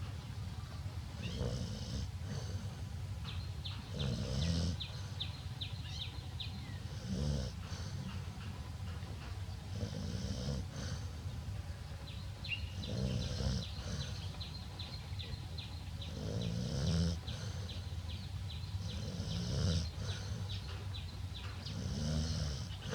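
An elderly woman snoring loudly in slow, regular breaths, one snore about every three seconds. A quick series of thin high ticks runs behind parts of it.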